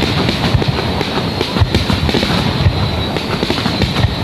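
Fireworks finale barrage: shells bursting in quick succession as a dense, unbroken run of bangs and crackling.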